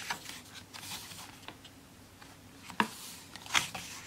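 Photo book pages being turned by hand: soft paper rustling, then two sharp paper flicks a little under a second apart, near the end.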